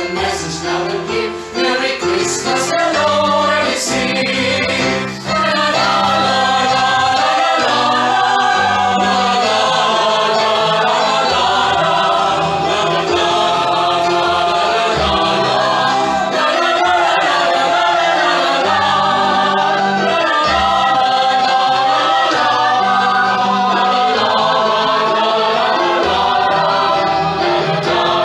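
A choir singing in several parts. A few sharp clicks sound in the first four seconds; then, about five seconds in, the full choir comes in with sustained chords that shift slowly.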